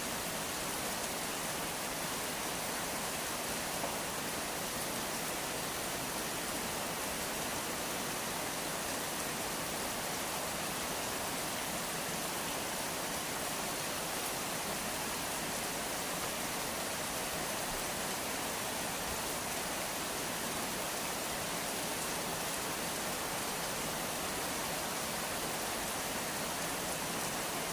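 Steady rain falling, an even unbroken hiss with no single sound standing out.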